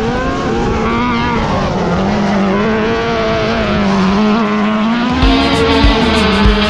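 Autocross race car engine running hard, its pitch rising and falling as it revs and shifts. About five seconds in, music with a drum beat comes in over it.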